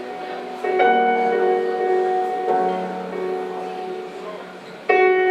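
Live keyboard interlude: slow chords struck and left to ring and fade, a new chord about a second in, a lower bass note around the middle, and a louder chord near the end.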